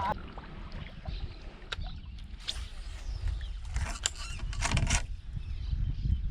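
Low wind rumble on the microphone aboard a fishing kayak, with a few short knocks and clicks of gear being handled, bunched about four to five seconds in.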